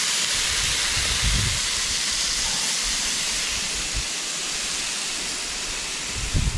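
Marinated beef ribs sizzling steadily on the grate of a portable propane grill, with a few dull bumps as tongs turn the meat.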